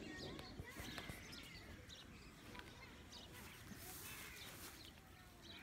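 Faint chirping of birds: many short, scattered calls over quiet outdoor ambience.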